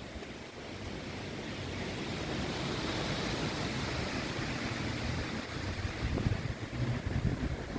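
Wind gusting on the microphone with a low rumble, and a rushing swell of noise that builds over the first few seconds and fades again near the end.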